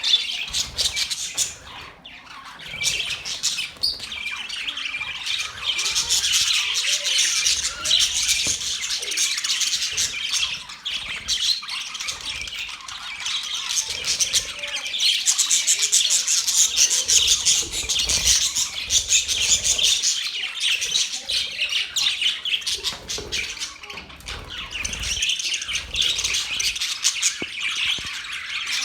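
Budgerigars chirping and chattering, many quick high chirps overlapping in a continuous stream that eases a little now and then.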